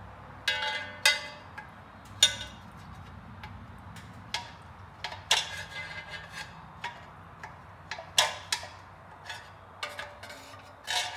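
Metal hand tools clinking and tapping against the flywheel and bolts of a small-block Chevrolet V8. The strikes come irregularly, over a dozen in all, some with a short metallic ring, over a faint steady hum.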